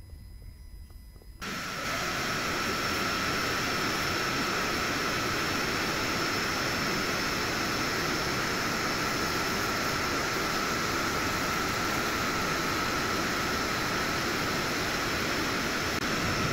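A steady hiss of rushing air or gas with a high whistling tone through it, starting suddenly about a second and a half in and holding evenly.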